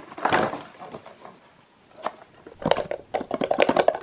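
Cardboard gift-box packaging being handled: rustling and light clicks and knocks in two bursts, a short one just after the start and a longer, busier one in the last second and a half, with a lull between.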